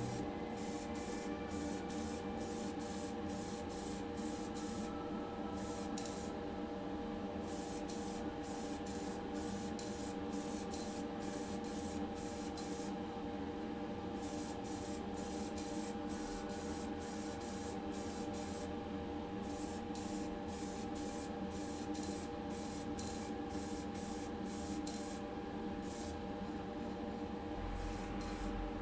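Paint being sprayed for the colour coat on a diecast model car body: a hiss in rapid short spurts, a couple a second, with a few pauses of about a second. A steady hum runs underneath.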